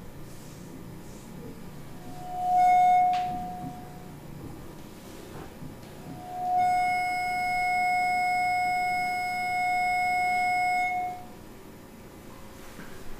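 Two held electronic tones at one steady pitch, part of a live electronic music set: a short tone about two seconds in, then a longer one of about four seconds, each starting and stopping cleanly.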